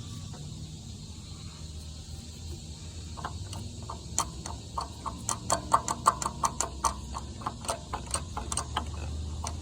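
Jeep Wrangler's 3.6 V6 engine idling with a cylinder 6 misfire (code P0306), a steady low hum. About three seconds in, a run of sharp, irregular ticks, several a second, starts over it.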